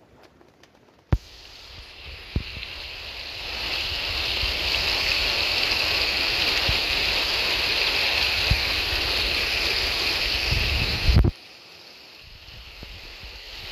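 Mountain stream water rushing and churning over rocks, heard close, with a low rumble and a few thumps on the microphone. About eleven seconds in it drops to a fainter, gentler flow.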